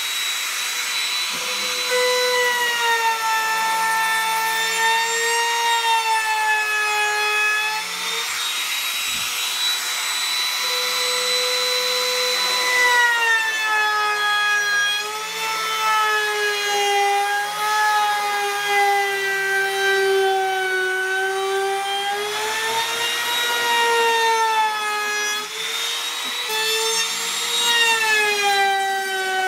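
Makita compact trim router running and cutting into a pine board, its steady high whine dipping in pitch and recovering again and again as the bit takes and releases load.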